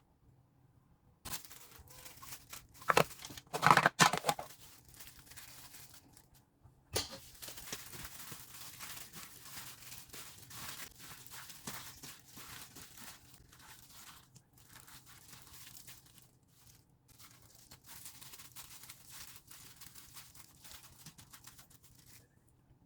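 Crinkling, rustling and tearing noises, like material being handled, going on almost throughout, with a few louder bursts a few seconds in.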